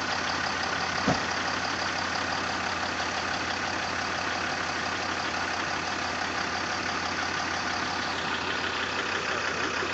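Land Rover Discovery 4's engine running steadily at idle, with one short sharp knock about a second in.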